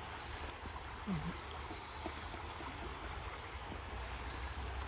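Songbirds singing high, twittering phrases, with a fast trill of repeated notes in the middle, over the steady rush of river water. A brief low sound comes about a second in.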